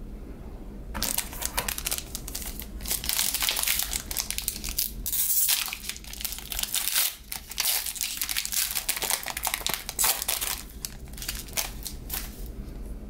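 Foil wrapper of a basketball trading-card pack crinkling loudly as it is torn open and pulled apart by hand. Starts about a second in and eases off near the end.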